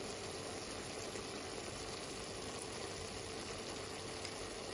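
Chicken livers frying in olive oil in a pan: a steady sizzle, with a faint steady hum underneath.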